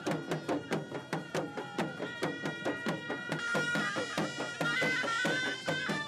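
Traditional music: a fast, even clatter of percussion strikes with low plucked notes, under a steady high reedy tone that starts to waver in pitch about four seconds in.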